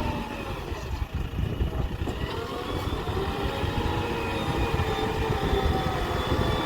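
Heavy diesel engine running under load, its pitch dipping about a second in and rising again from about three seconds.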